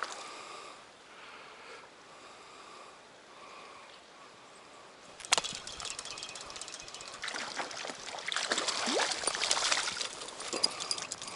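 Stream water running, then a sharp click about five seconds in followed by close splashing and crackling in the water.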